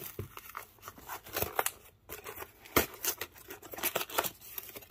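Cardboard flat-rate mailing box being torn open by hand, with the paper packing inside rustling and crinkling: a run of short, uneven rips and scrapes.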